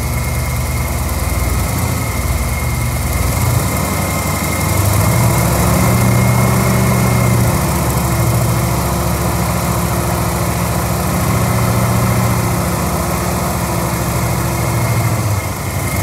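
Freshly built Ford 302 small-block V8, stroked to 347 cubic inches, running at idle. The idle speed rises a little about four to five seconds in, wanders slightly, and sags briefly just before the end.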